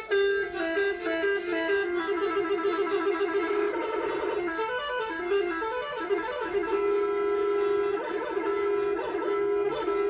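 Telolet bus horn, a set of electrically switched air-horn trumpets, playing a fast melody that hops quickly between a few pitches, with one long held note about two-thirds of the way through. A brief hiss sounds about a second in.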